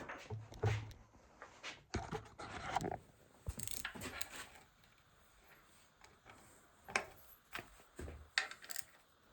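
Scattered clinks, clicks and scrapes of small metal objects being moved and knocked together, coming in irregular clusters.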